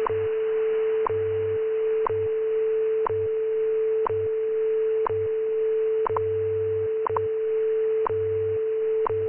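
WWV time-standard broadcast heard over 20 MHz shortwave: a steady 440 Hz tone (A above middle C) with a short tick each second, the tone dropping out briefly around each tick. About six and seven seconds in the ticks come doubled, WWV's marking of the UT1 correction. Beneath it, the station's 100 Hz time code hums on and off in pulses of differing length, all over a bed of shortwave hiss.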